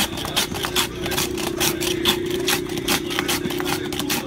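Hand-held metal ice shaver scraped repeatedly over a block of ice in quick rasping strokes, about four a second, shaving ice for yukis. A steady low hum runs underneath.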